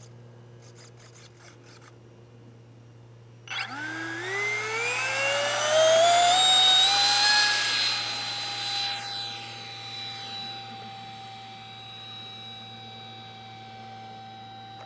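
Electric ducted fan of a Unique Models T-50 RC jet on a 5S battery spooling up about three and a half seconds in: a whine that rises steadily in pitch for about four seconds. It then holds a steady high whine that grows fainter as the jet rolls away on its takeoff run and climbs out.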